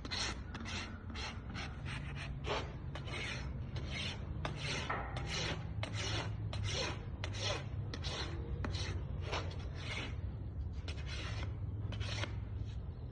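Farrier's hoof rasp filing a horse's hoof wall where it meets the aluminum shoe: a steady series of short rasping strokes, about two to three a second.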